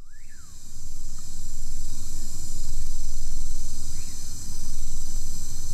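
Outdoor ambience: a steady high-pitched insect chorus over a low rumble. A short rising-and-falling call, like a bird's, comes at the start and again about four seconds in.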